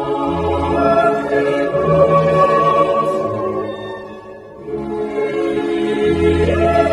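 Choral singing, held sustained chords that fade a little about four seconds in and then swell again.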